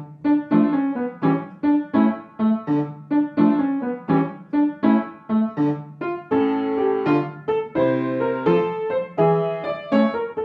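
Intro music: a piano tune of struck notes in a steady rhythm, about two or three notes a second, with fuller chords around the middle.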